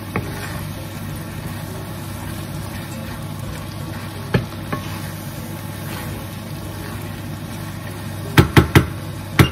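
Creamy pork and courgette mixture sizzling in a frying pan as a spatula stirs through it, over a steady low hum. Near the end, a quick run of sharp knocks as the spatula strikes the pan.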